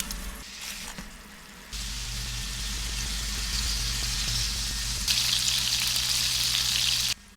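A steady hissing noise with a low hum beneath it. It starts suddenly about two seconds in, gets louder about five seconds in, and cuts off abruptly near the end.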